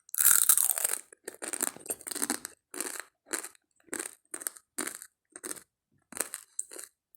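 Someone chewing close to the microphone: a steady run of short, wet, crunchy chews, about two a second.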